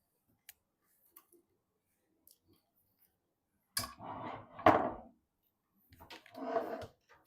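Handling sounds from assembling a PC: a few faint clicks, then a sharp click and about a second of scraping with a loud knock, and another scrape a second later.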